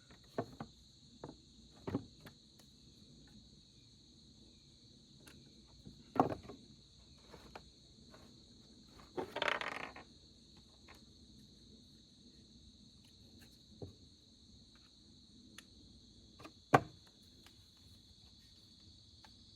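Crickets chirring steadily in the background. Over them come scattered sharp metallic clicks and knocks of tools and chainsaw parts being handled as a bolt is taken out of the brake cover, with a short scraping rush about halfway and the loudest knock near the end.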